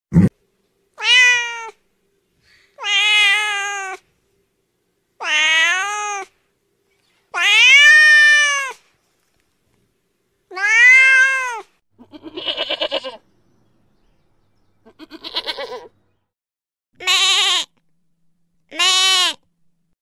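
Domestic cat meowing: five long, drawn-out meows that rise and fall in pitch, a second or two apart. They are followed by two rapidly pulsing calls and, near the end, two shorter quavering calls. A very short loud burst comes right at the start.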